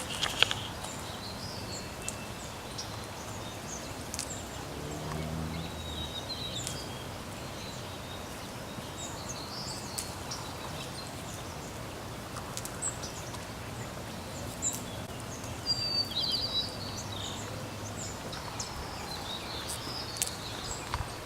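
Outdoor ambience: a steady background hiss with scattered short bird chirps, and a brief low hum about five seconds in.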